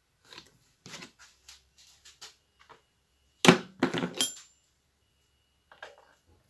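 Hand tools handled on a workbench during disassembly of a hedge trimmer: a few light clicks, then a loud cluster of ringing metal clinks about three and a half seconds in as a screwdriver is set down on the bench.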